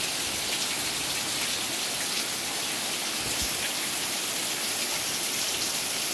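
Heavy rain pouring down steadily: a loud, even hiss of a downpour.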